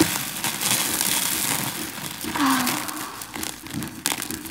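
Small scissors snipping into a rubbery, sand-filled hand-shaped squishy toy, with crinkling, rustling and small clicks as the toy is handled and cut over a bin.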